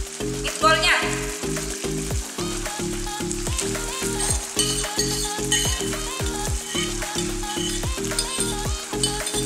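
Spaghetti sauce sizzling and bubbling in a wok as meatballs are tipped in and stirred with a wooden spatula, under background music with a steady beat.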